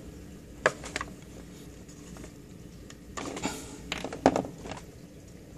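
Hands handling the parts of a plastic soldering-station case, with a few sharp plastic clicks and knocks about a second in and again about four seconds in, and a short rustle between them.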